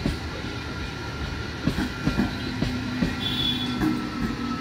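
Electric suburban local train (EMU) passing close by: steel wheels clacking irregularly over rail joints above a steady running rumble, with a steady high whine and a short higher squeal about three seconds in.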